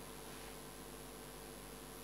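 Quiet room tone: a steady faint hiss with a low, even hum underneath and no distinct events.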